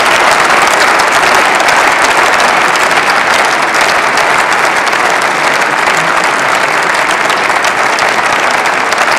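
Members of parliament applauding: many hands clapping together in a dense, steady wash of sound that holds at one level.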